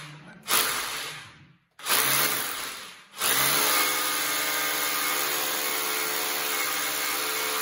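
Bosch rotary hammer drilling: two short bursts, then a long steady run with an even motor whine that stops near the end.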